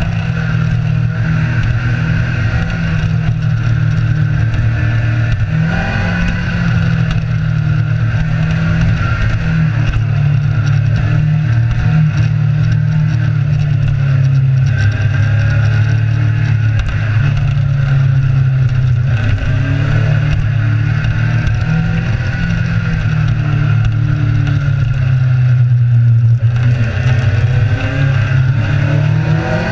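Kawasaki Z1000 inline-four motorcycle engine running steadily under way. Its pitch rises near the end as the bike accelerates.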